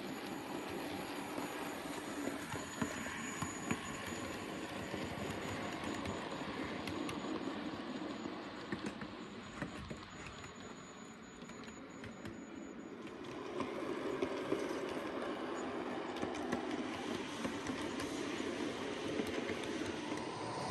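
Model train running along the layout's track: a steady rumble of rolling stock with small ticks. It grows quieter for a few seconds about halfway through, then louder again.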